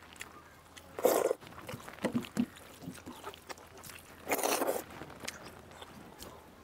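Close-up eating sounds of people eating pakhala (rice soaked in water) with their hands. Two louder wet mouth noises, about a second in and again about four and a half seconds in, with small chewing clicks between.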